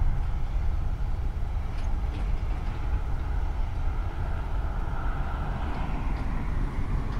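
Jet airliner's engines at takeoff power during the takeoff roll, heard from a distance: a steady low rumble, with a rushing roar that grows louder in the second half.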